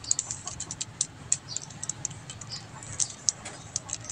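Plastic 3x3 Rubik's cube being twisted by hand, its layers clicking and rattling in quick, irregular clicks as a face is given two clockwise turns.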